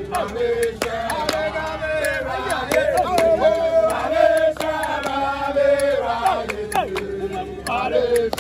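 A group of men singing a chant together, many voices holding long notes at once.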